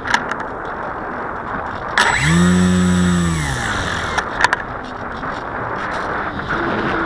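Parkzone Radian electric motor glider's brushless motor and propeller: a short burst of steady whine about 2 s in that holds for about a second and a half, then winds down. A steady rush of wind noise runs underneath, with a few sharp clicks.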